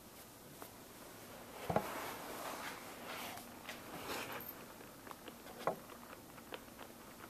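Samoyed puppy moving about on towels in a whelping box: soft paw pats and scrabbling, with a rustle of cloth from about two to four and a half seconds in. Light knocks come now and then, the sharpest as the rustle begins and another just before six seconds.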